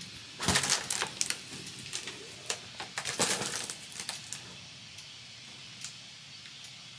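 Handling noise close to the microphone: bursts of rustling with sharp little clicks and knocks, loudest about half a second in and again about three seconds in, then a few single clicks fading to quiet room tone.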